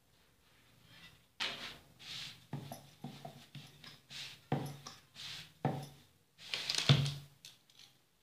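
A hand patting and pressing jowar roti dough flat on a floured wooden board: a string of soft, irregular pats and rubs, about two or three a second, with a somewhat louder one near the end.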